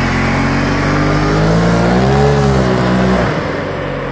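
Polaris RZR Turbo side-by-side engine under throttle as the stripped-down machine drives off. The note rises to a peak about two seconds in, falls back, then drops and fades as the machine pulls away.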